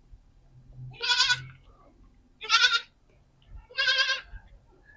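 Young goat bleating three times, each call high and wavering, calling for its mother.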